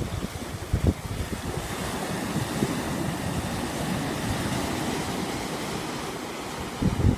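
Wind buffeting the microphone over a steady rushing noise, with stronger gusts about a second in and near the end.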